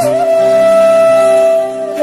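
Instrumental music: a flute holds one long steady note over a soft sustained accompaniment, dipping slightly in loudness near the end.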